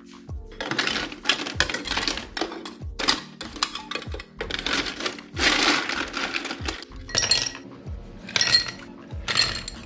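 Ice cubes clattering and clinking against glass in a string of bursts, the longest two about a second and two seconds long, over background music with a steady beat.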